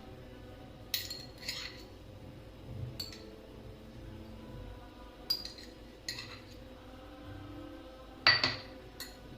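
Metal spoon clinking against a cooking pan as oil is spooned in for a tempering: a series of short, light clinks spread out, the loudest near the end.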